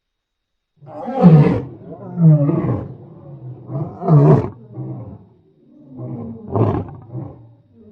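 Lion roaring: after a second of silence, a run of deep, throaty roars, the first three the loudest, followed by shorter, weaker grunting calls.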